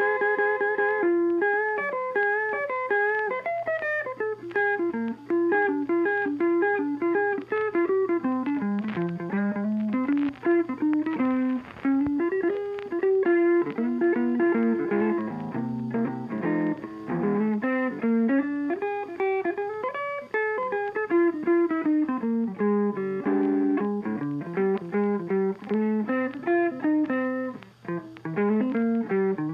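Background music: a plucked guitar melody playing continuously, note after note.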